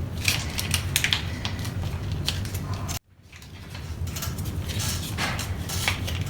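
Irregular light clicks and scrapes of utensils against a dish, over a steady low hum. The sound cuts out abruptly about halfway through and fades back in.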